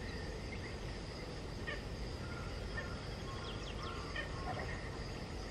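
Outdoor ambience: a steady high insect drone over a low background rumble, with a few short bird chirps in the middle.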